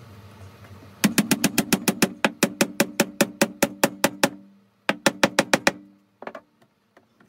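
Small hammer tapping a peg into a round wooden tabletop in quick, even light blows, about six a second for some three seconds. After a short pause comes a second, shorter run of taps and two last ones, the wooden top ringing briefly with each blow.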